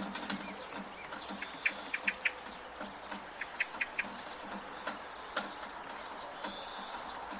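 Rain falling, with water dripping and splashing from a gutter in scattered drops over a steady hiss. A bird chirps in two quick runs of short notes, about a second and a half in and again around three and a half seconds.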